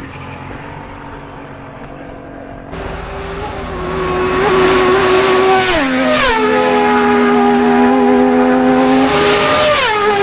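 A racing motorcycle at high revs approaching at speed, getting louder, with its engine note dropping sharply in pitch twice.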